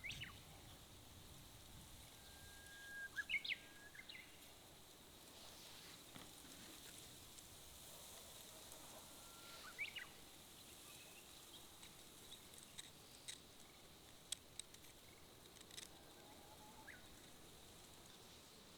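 Wild birds calling in quiet countryside. About three seconds in there is a long held whistle that ends in a quick upward flourish, and shorter rising calls follow near the middle and near the end, with a few faint clicks in between.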